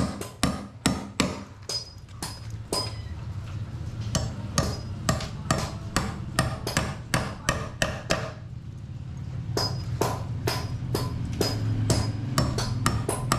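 A hammer striking nails in a steady run of blows, about two to three a second, with a short pause about eight seconds in. A steady low hum runs underneath.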